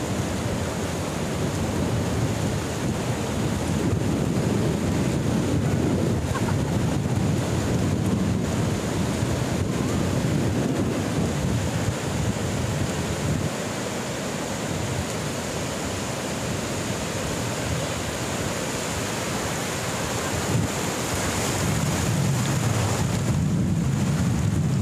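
Sea surf washing in on a shallow, flat beach, with strong wind buffeting the microphone in a steady low rumble.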